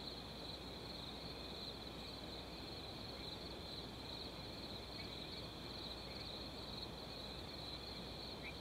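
Faint, steady chorus of insects trilling high, with a low steady hum underneath and a couple of short chirps near the end.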